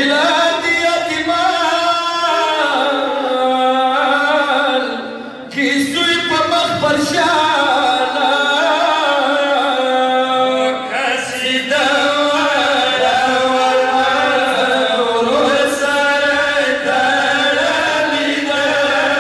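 Men chanting a Pashto nauha, a Shia mourning lament, into microphones, the singing voice carrying a bending, held melody with a short break about five seconds in.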